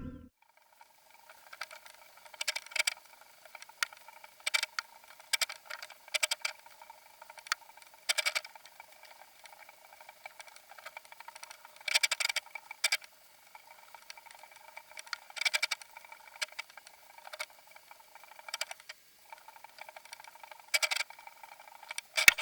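Irregular sharp clicks and ticks, sometimes in quick clusters, over a faint steady whine, thin and tinny with no low end.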